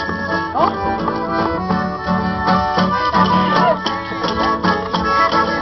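Live acoustic guitar and piano accordion playing a lively tune together with a steady beat.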